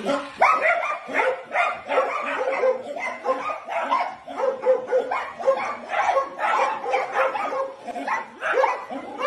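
Small dogs barking at a toy train, in quick repeated yaps, several a second.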